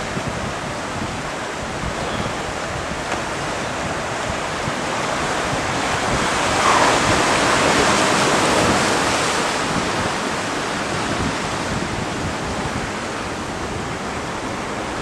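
Ocean surf surging through a narrow rock channel: a wave rushes through, swelling to its loudest about seven seconds in, then easing back to the steady wash of churning white water.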